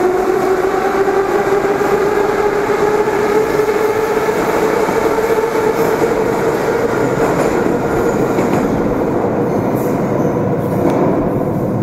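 Moscow metro train pulling away into the tunnel: its traction motors whine in a slowly rising pitch over the rumble and clatter of the wheels. The whine fades near the end as the last car goes into the tunnel, and the rumble carries on.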